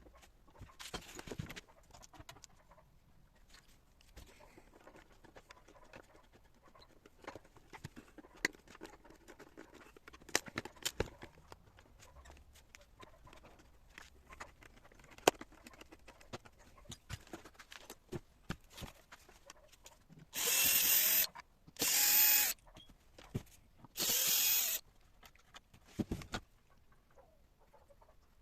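Cordless drill-driver running in three short bursts, backing screws out of a chair. Between the bursts come scattered small clicks and knocks of handling the chair and its parts.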